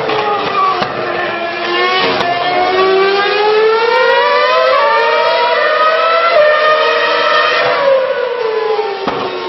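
Formula One car's 2.4-litre V8 engine at high revs: the pitch dips briefly, then climbs steadily for several seconds with a gear change about halfway, and drops away near the end.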